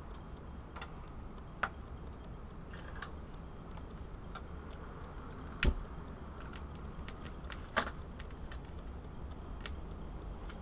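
Small metal parts of a compact emergency cooker being handled and set up on a counter: scattered light clicks and clinks, with a sharp knock about five and a half seconds in, louder than the rest, and another about two seconds later.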